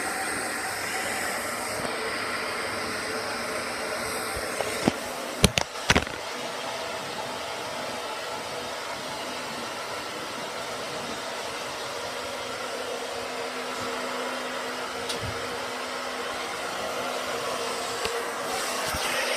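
Hair dryer running steadily, with a few sharp knocks about five to six seconds in.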